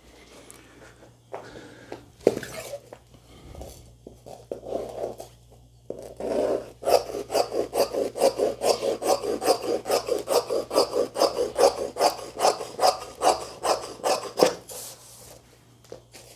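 Hand rubbing back and forth over stiff Turkish net laid on taffeta to smooth it flat. From about seven seconds in until near the end it makes a rapid, even run of scratchy strokes, about three or four a second, after a few scattered scrapes and a sharp click.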